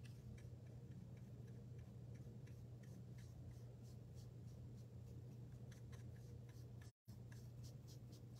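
Faint, quick dabs and scratches of a paint sponge on a wooden cutout, a few a second, over a steady low hum. The sound cuts out completely for a moment near the end.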